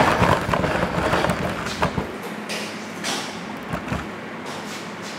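Rumbling handling noise as the camera is carried, then a few light knocks and clicks.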